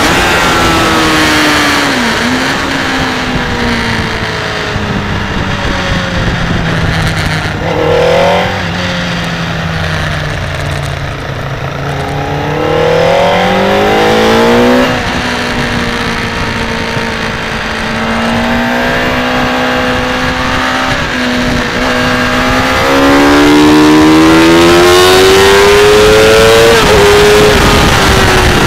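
Motorcycle engine heard from an onboard camera at speed on a race track, its pitch climbing with the throttle and dropping sharply at gear changes and under braking, over a steady rush of wind and road noise. It is loudest in a long climb near the end, which cuts off with a sudden drop.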